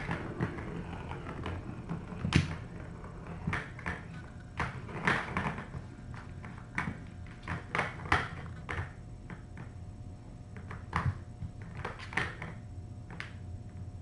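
Hard plastic cat track toy clattering as a kitten bats at it, its ball knocking around the track in irregular clicks and knocks, a few louder than the rest.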